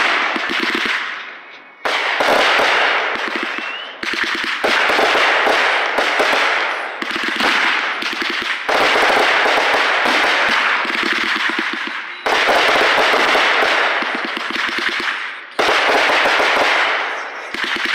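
Aerial fireworks going off in quick succession, a new burst about every two to three seconds, each a sharp bang followed by a dense crackle that fades away.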